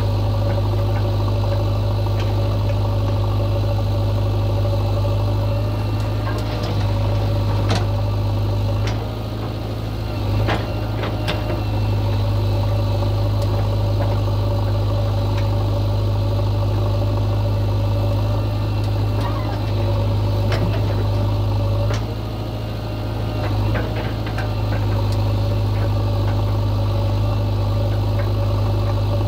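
Diesel engine running steadily near idle, with a few sharp knocks over it; the level dips briefly twice.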